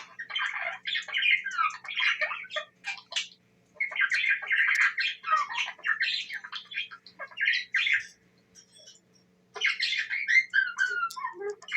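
Budgerigar warbling and chattering in fast runs of chirps and squawks, with two short pauses, about three and a half seconds in and around eight to nine and a half seconds in.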